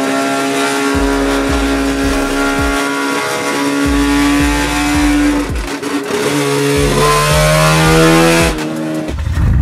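Naturally aspirated 13B two-rotor rotary engine in a Suzuki Carry kei truck revving hard while drifting, its high, buzzy note holding and wavering with the throttle. About seven seconds in it climbs steeply, then drops away near the end.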